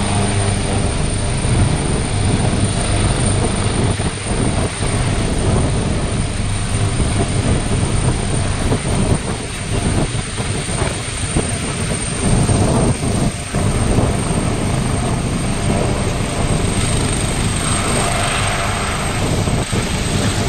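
Helicopter landing: its rotor and turbine engines run loud and steady as it descends and settles onto the pad.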